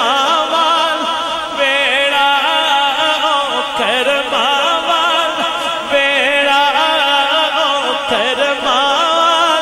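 Male voice singing a Punjabi/Urdu naat in long, wavering, ornamented phrases.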